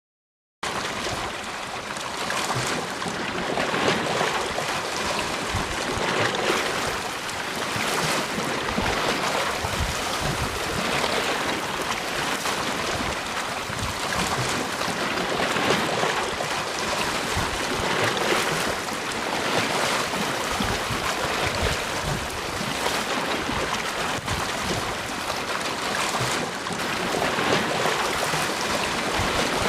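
Sea waves washing onto a beach, a steady surf hiss that swells and falls every few seconds. It starts abruptly about half a second in.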